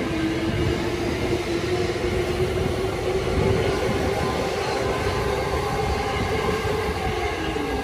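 Keihin-Tohoku Line E233-1000 series electric train moving alongside on the next track: a steady rumble of wheels on rail with a motor whine that rises slowly in pitch and dips near the end.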